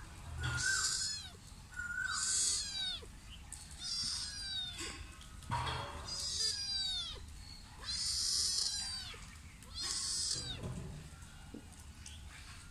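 Adult cat meowing over and over: about six high-pitched, falling calls, roughly two seconds apart, that stop shortly before the end.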